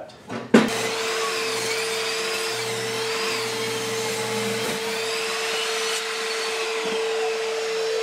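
Chicago Electric 10-inch benchtop table saw switched on about half a second in, its motor and blade then running at a steady whine while a board is pushed through the blade.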